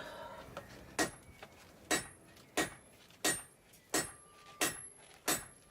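Hand hammer striking a hot layered steel billet on an anvil, about eight even blows roughly two-thirds of a second apart, each with a short bright metallic ring: setting a forge weld in the three-layer san mai billet.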